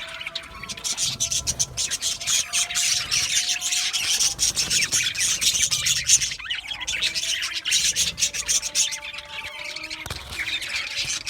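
A flock of budgerigars chattering, many high chirps and squawks overlapping without a break.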